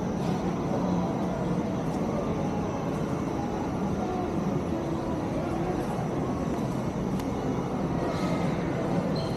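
Steady indoor shopping-mall ambience: an even, low rumble of room noise with faint, indistinct background sounds and no sharp events.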